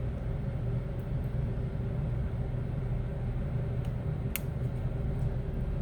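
Steady low mechanical hum, like a fan running, with a few faint small clicks, the sharpest about four and a half seconds in.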